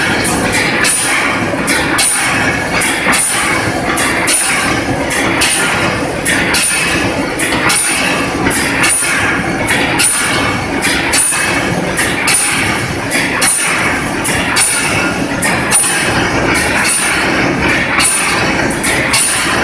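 Automatic wire mesh welding machine running, its row of resistance welding heads clanking down in a steady repeating cycle as they weld the fence panel.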